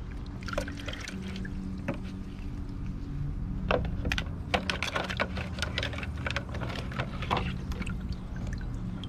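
A stone lifted with serrated metal tongs out of a plastic bucket of vinegar and baking soda solution: liquid sloshing and dripping, with many sharp clicks and scrapes of metal on stone and bucket, thickest in the middle. A steady low hum runs underneath.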